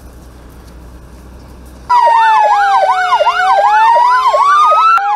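Police car sirens start suddenly about two seconds in, loud, warbling up and down about three times a second over a slower falling-then-rising wail, with a steady lower note beneath. Before that there is only faint outdoor background.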